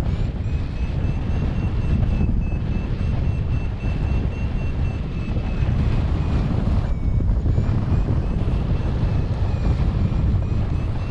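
Wind buffeting the microphone during a paraglider flight, a dense low rumble throughout. Over it a paragliding variometer sounds a thin high tone that drifts slightly in pitch, dipping briefly about seven seconds in.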